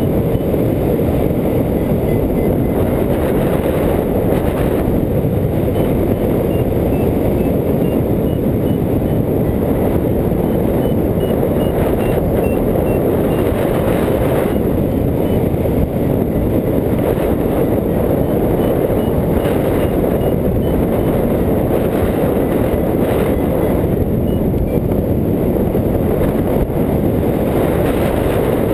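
Steady, loud wind rushing over the microphone of a hang glider in flight. Faint strings of short, high beeps come and go under it.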